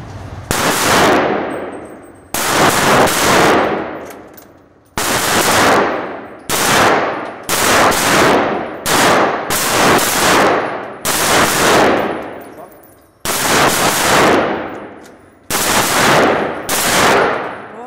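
Scoped rifle fired shot after shot, about a dozen single shots a second or two apart, each followed by a long reverberant tail in an enclosed indoor range.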